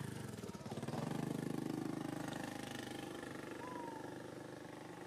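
An engine running in the background, swelling about a second in and then fading away.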